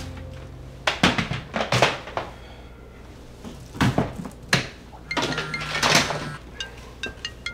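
Kitchen trash can being pulled out and its lid opened: a series of knocks and clatters, then a longer rustling scrape of lid and bin liner.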